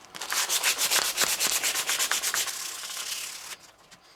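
Rapid back-and-forth rubbing or scrubbing on a motorcycle handlebar, a quick run of hissy strokes that eases off and fades near the end, as the bar is cleaned up before a grip goes on.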